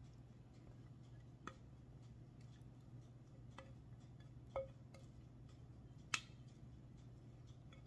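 Near silence: a faint steady hum under a few soft, sparse clicks, the sharpest about six seconds in, from a spatula scraping thick banana bread batter out of a plastic mixing bowl into a loaf pan.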